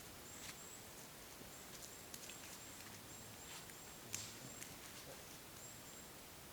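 Faint, high, thin calls of a small bird, short whistles repeated irregularly, over quiet forest air, with a few light clicks and snaps, the sharpest about four seconds in.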